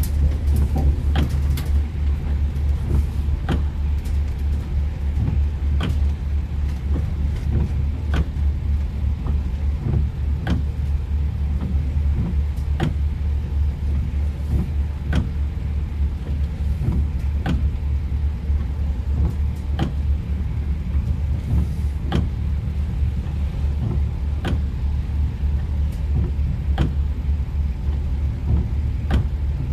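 Car driving on a wet road, heard from inside: a steady low road and engine rumble with tyre hiss, and a sharp click about every two seconds from the windshield wipers sweeping.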